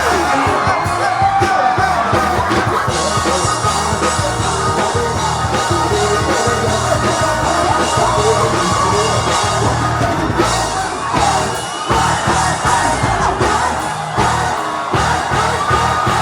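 Loud music with singing and shouting voices.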